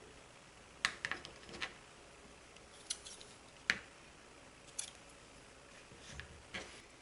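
Scissors snipping: about eight sharp, separate clicks spaced irregularly across a few seconds.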